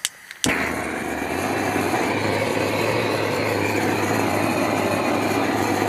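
Handheld butane gas torch lit with two clicks, the second about half a second in, then its flame burning with a steady rushing hiss while it preheats a wood stove's stovepipe.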